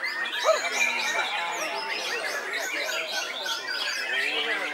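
Several caged songbirds singing over one another, white-rumped shama song among them: a dense flurry of overlapping whistles and trills, with one loud note about half a second in.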